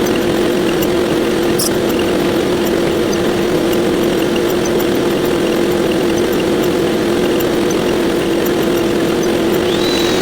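Sound effects sped up 128 times and blurred into one steady, dense hiss with a constant hum, flecked with faint ticks. A high whistling tone rises and then holds near the end.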